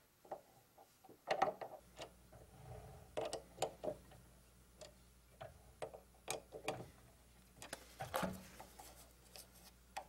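Metal clicks and knocks of a four-jaw lathe chuck being worked by hand: a small metal block seated against the jaws and the jaws tightened with a chuck key, in several short clusters. The lathe itself is not running.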